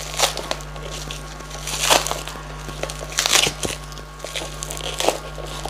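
Thin clear plastic wrap crinkling and crackling as it is peeled and pulled off a small cardboard box, in irregular bursts, loudest about two seconds in and again just after three seconds.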